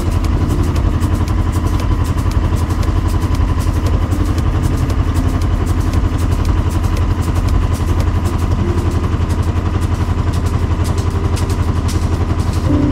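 Sailboat's inboard diesel engine running steadily under way at cruising speed, with a fast, even beat.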